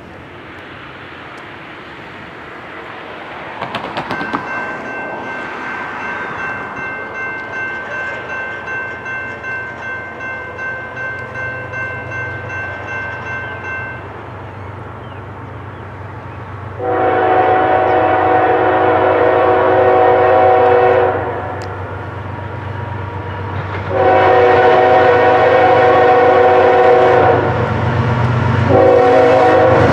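A railroad crossing bell rings about twice a second for roughly ten seconds and then stops, while the low rumble of approaching diesel locomotives builds. Then the lead GE ES44AC's air horn sounds two long blasts and starts a third near the end, as for a grade crossing.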